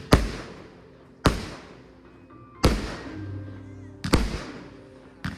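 Firework bangs, five sharp reports about a second and a half apart, each trailing off in a crackling echo, with music playing underneath.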